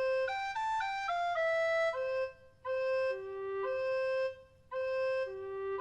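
A flute playing a simple tune: a quick run of short notes stepping downward, then slower, longer notes swinging between two pitches in short phrases with brief pauses between them.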